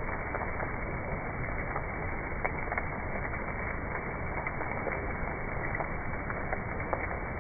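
Steady hissing ambience with scattered soft crackles and clicks: a calming nature-sound backing track.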